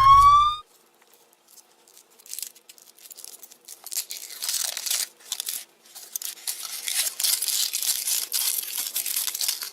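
Foil wrapper of a Kinder Surprise chocolate egg being torn and crinkled open by hand, in irregular rustling bursts that grow busier from about four seconds in. A cartoon-style rising 'boing' sound effect ends about half a second in.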